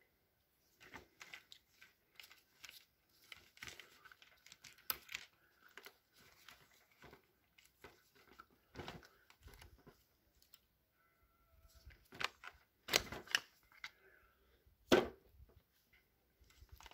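Plastic housing and metal gearbox parts of a DeWalt DCH273 SDS hammer drill being handled and pulled apart: scattered clicks and rustles, with a few sharper knocks in the last few seconds.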